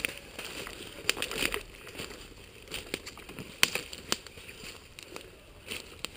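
Scattered rustling and crackling of leaves, twigs and clothing as someone shifts in forest undergrowth, with a few sharp clicks, the sharpest a little past halfway.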